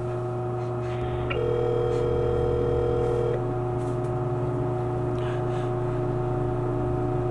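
Telephone ringback tone, the ringing a caller hears while waiting for an answer. One two-second ring sounds about a second and a half in, and the next starts four seconds after it ends. A steady low hum runs underneath.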